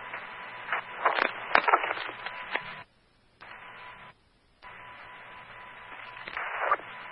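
Fire department two-way radio channel heard through a scanner: open-mic static hiss with clicks and pops as firefighters key their radios for an electronic roll call, a steady tone running under the hiss. The hiss drops out twice briefly as the squelch closes between transmissions.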